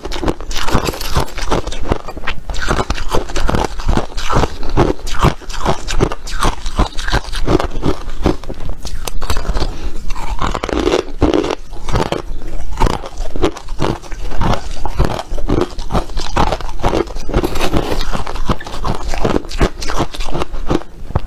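Ice being bitten and chewed close to the microphone: a fast, uneven run of crisp crunches, several a second.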